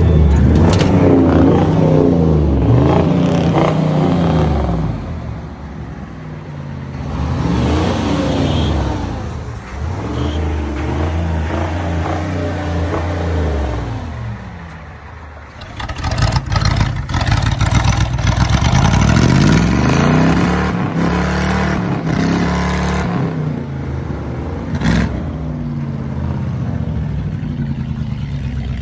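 Pickup truck engine with a vertical stack exhaust being revved hard again and again, its pitch climbing and falling back with each rev.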